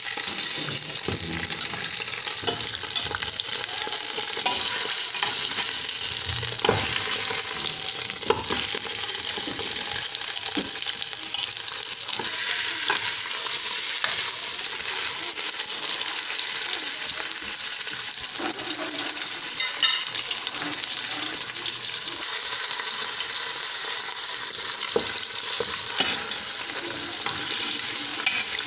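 Beef shank pieces searing in hot oil in a metal pot: a steady sizzle, with a few light clicks of metal tongs against the pot as the meat is turned.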